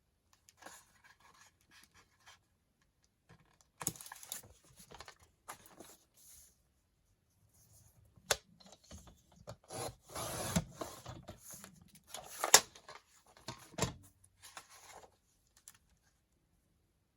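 Sheets of paper being handled and arranged: irregular rustling and sliding, with a few sharp taps, the loudest about two thirds of the way through.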